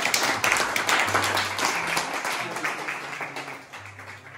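A small group of people clapping, the applause fading away toward the end.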